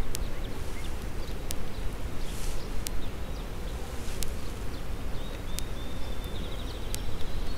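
Mass of Italian hybrid honey bees from an opened bee package buzzing as a steady, dense hum.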